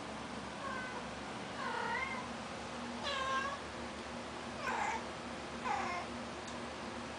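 A cat meowing: a faint call, then four louder short meows about a second apart, some rising and some falling in pitch, over a steady room hum.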